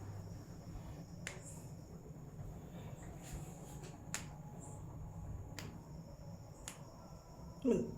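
Sharp snaps from a traditional Indian head massage, about five spaced a second or so apart, over a steady low hum. Near the end comes a short, falling pitched sound, the loudest moment.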